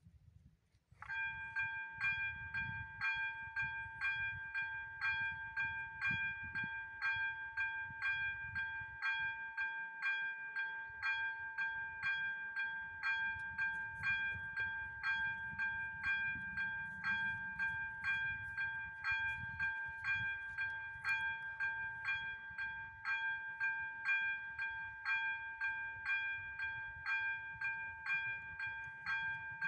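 ZV-02 electronic level-crossing bell starting up about a second in and ringing steadily at about two strikes a second, the warning that a train is approaching the crossing.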